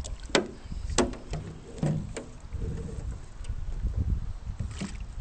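Hooked bass splashing at the water's surface beside the boat as it is brought in by hand: a few short, sharp splashes over a low steady rumble.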